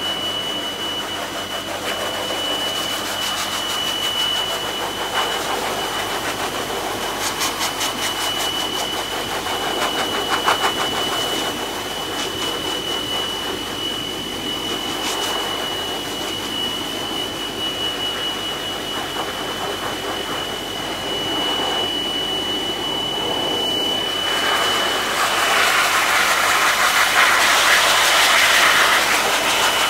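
Pet force dryer (a high-velocity blower with a hose) running steadily: a rush of air with a steady high whine from its motor. The air noise grows louder and hissier near the end, as the nozzle is held close in.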